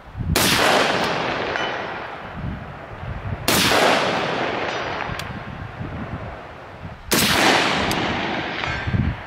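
Three rifle shots from a Lead Star Arms Grunt III AR-15, about three and a half seconds apart, each followed by a long rolling echo that fades out slowly.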